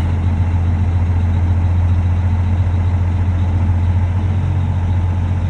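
Large farm tractor's diesel engine running with a steady, unchanging low drone while the hitched heavy harrows are raised to tighten their tension cables.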